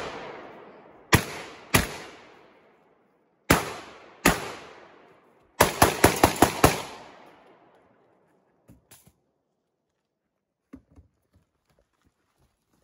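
Close gunshots, each ringing out and fading: two about a second apart near the start, two more at about three and a half and four seconds, then a fast string of about seven shots in just over a second. After that only a few faint clicks.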